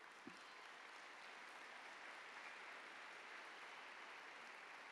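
Faint, steady applause from a large audience, heard as an even distant patter.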